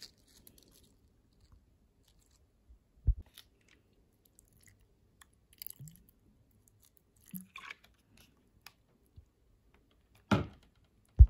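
Scattered kitchen handling sounds: a soft knock about three seconds in, a brief crackly rustle in the middle, and two louder knocks near the end.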